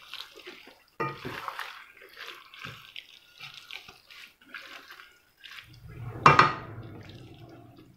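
A wooden spatula stirring and scraping a thick, moist chicken-and-vegetable mixture in a metal pot, in short, irregular strokes. About six seconds in comes one louder sharp knock with a brief ring.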